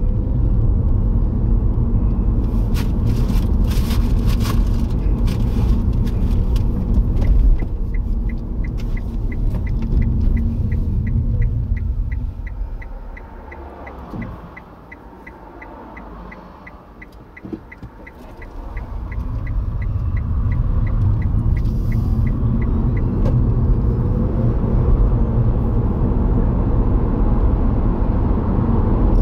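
Car cabin noise while driving: low engine and tyre rumble that dies down as the car slows to a stop at a junction about 12 seconds in, then builds again as it pulls away. A turn indicator ticks about three times a second while the car slows, waits and pulls out.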